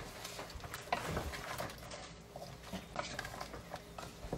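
Wooden spatula stirring chunks of mutton in a metal pressure-cooker pot: irregular scrapes and light knocks against the pot.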